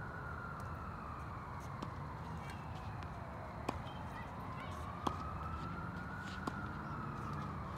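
Tennis ball struck by rackets: three sharp hits about a second and a half apart, starting a few seconds in. Under them a distant siren slowly wails up and down.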